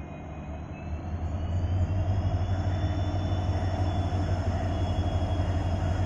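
EMD WDP-4D diesel-electric locomotive's engine throttling up as the train accelerates: a heavy low drone that swells louder a second or two in, with a high whine rising in pitch.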